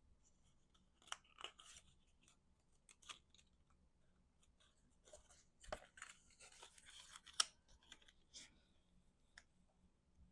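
Cardstock pieces being handled and slid into slits in a pop-up card: faint, scattered paper rustles and light taps, busiest through the middle, with one sharper tap about two-thirds of the way in.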